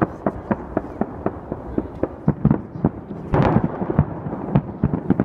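Fireworks display: aerial shells bursting in quick succession, sharp bangs about three or four a second, with a denser crackling burst a little past the middle.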